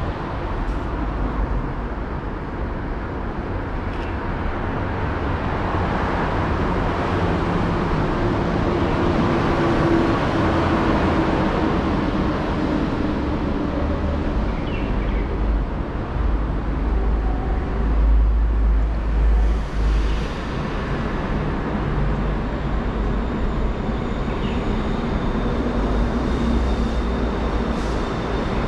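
City street traffic: a steady rumble of passing vehicles, loudest about two-thirds of the way through.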